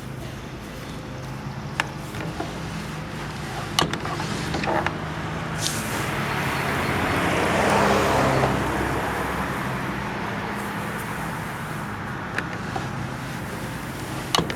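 A motor vehicle passing on the road, its engine and tyre noise swelling to a peak about eight seconds in and then fading away. A few sharp knocks sound in the first five seconds.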